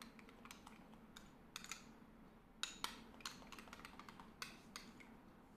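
Near silence broken by a few faint, irregular clicks of a metal spoon against a small glass mixing bowl.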